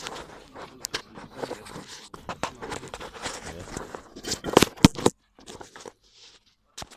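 Handling noise from a phone being moved about in the hand: fingers rubbing and scraping over the microphone, with a few sharp knocks a little past halfway, then mostly quiet.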